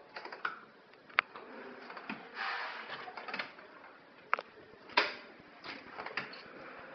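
A few sharp knocks and rattles from a door as a toddler's hands bang and push on it, with a short scraping stretch between them.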